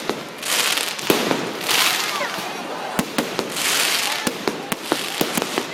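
Fireworks display: a string of sharp bangs from bursting shells, with swells of crackling hiss every second or two.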